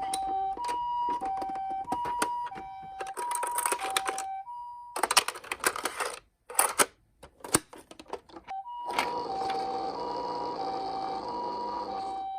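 Toy ambulance minicar's electronic two-tone hi-lo siren, a higher and a lower tone alternating about every half second, over plastic clicks and rattles of the toy being handled and run. The siren stops for about four seconds in the middle, filled by a burst of clattering and loose clicks. It then comes back with a steady rushing noise underneath.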